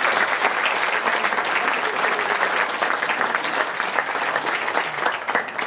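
Audience applauding, a dense steady clapping that thins out and dies away near the end.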